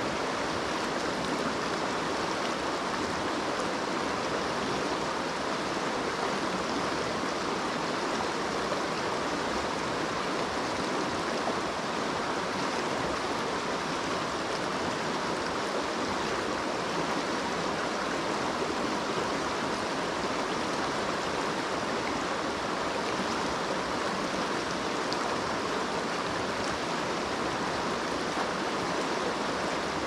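Mountain stream flowing, a steady rush of water.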